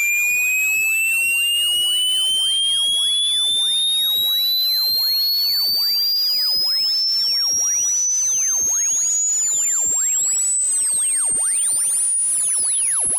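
Electronically generated tone sweeping steadily upward in pitch, from a high whistle to a piercing very high pitch, at a constant loud level, with fainter shrill tones crisscrossing beneath it.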